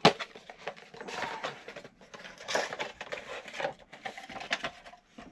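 Cardboard box being opened by hand and a furry microphone windshield pulled out of it: irregular rustling and scraping, with a sharp snap right at the start.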